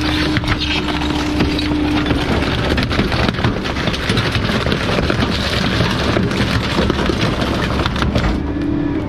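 Heavy collection truck running, a loud, dense rumbling noise with scattered knocks and a steady hum through the first couple of seconds.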